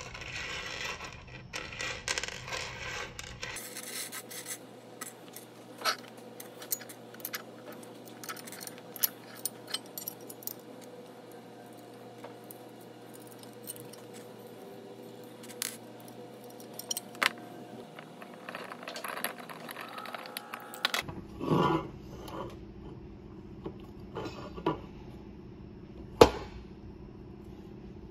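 Small steel machine screws and nylock nuts clinking and scraping as they are picked from a pile and fitted to an aluminium housing: scattered light metallic clicks, with one sharp click near the end.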